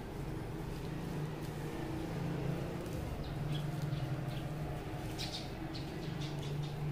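A steady low hum, with a cluster of short, high bird chirps in the second half.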